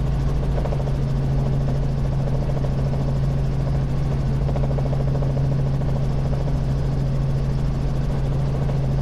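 Robinson R44 Raven I helicopter in flight, its piston engine and rotors making a steady, unchanging drone with a strong constant hum.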